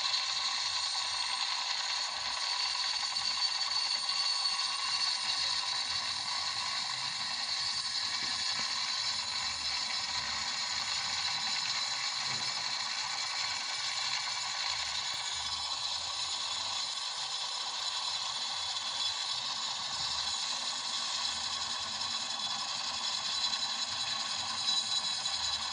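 Helicopter sound: a steady, fast mechanical rattle with a high-pitched whine, thin in the bass, holding unchanged throughout.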